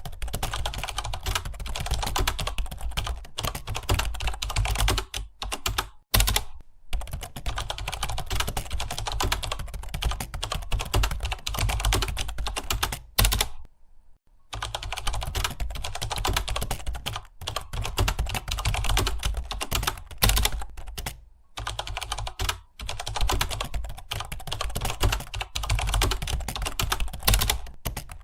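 Rapid, continuous typing on a computer keyboard, a dense patter of key clicks. It breaks off in brief pauses, the longest lasting about a second, around halfway through.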